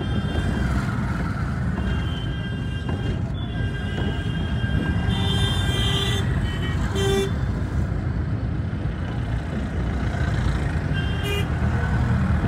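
Busy street traffic: a steady low rumble of engines and road noise, with repeated short vehicle horn toots, the loudest about five to six seconds in.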